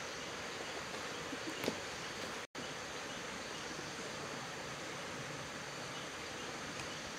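Steady rushing hiss of a small stream running, with one brief sharp snap about 1.7 seconds in and a split-second dropout to silence near 2.5 seconds.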